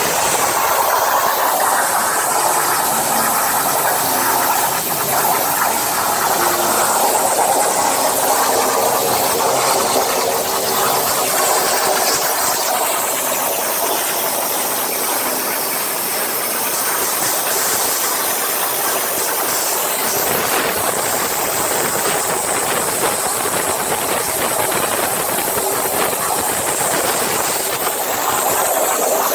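85-amp CNC plasma torch cutting 20 mm steel plate: a loud, steady hiss of the arc and its gas jet.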